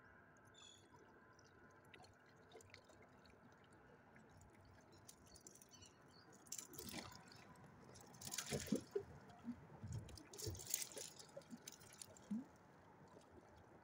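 Water splashing and dripping as a freshly caught channel catfish flops about, in three short bursts with some dull knocks, starting about halfway through after a quiet start.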